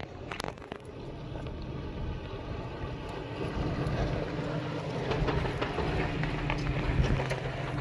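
Nissan Xterra's engine running at low revs as it crawls over sandstone, with sharp crunches and clicks of tyres on grit and rock near the start. The engine hum grows steadier and a little louder from about three seconds in.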